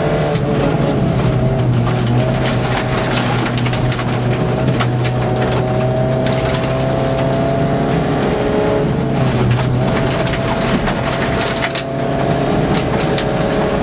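Mk2 VW Golf rally car's engine heard from inside the cabin, pulling under load on a gravel stage, its pitch climbing steadily and dropping back at a few gear changes. Loose gravel clatters against the underside.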